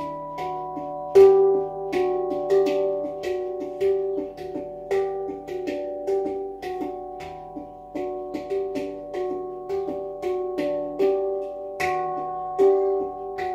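Steel handpan in the E Equinox scale played by hand: notes struck one after another, about two a second, each ringing on with its overtones, with a louder strike about a second in.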